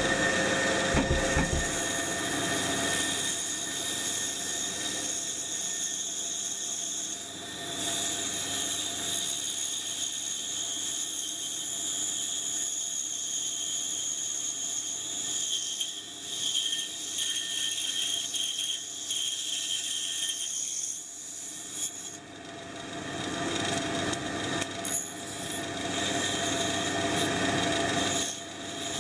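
Pégas fine-cut band saw running and cutting through a thick block of wood, with a dust-extraction vacuum running alongside as a steady whine. The cutting noise dips briefly a few times as the workpiece is turned.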